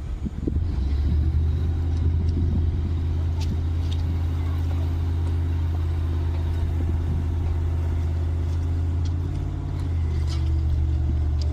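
Large engine running steadily with a low drone, easing off briefly about nine and a half seconds in and then picking up again.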